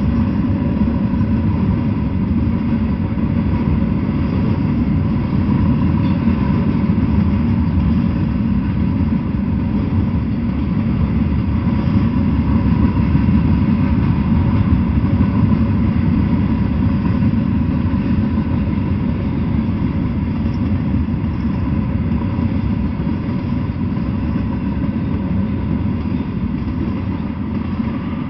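Freight train of flatcars rolling past: a steady rumble of wheels on the rails, easing off slightly near the end.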